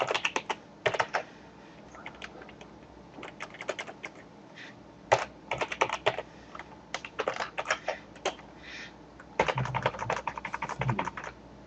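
Keystrokes on a computer keyboard, typed in several short runs with pauses between.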